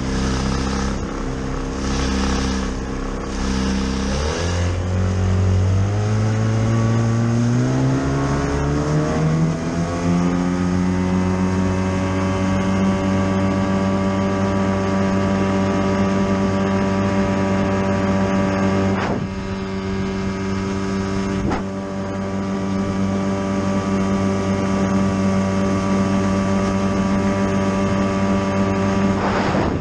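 Mercury Mark 28 two-cylinder two-stroke outboard motor on a small hydroplane, speeding up: its pitch climbs over several seconds, about four seconds in, then holds a steady high run at speed over the rush of water. Two brief knocks come near the middle.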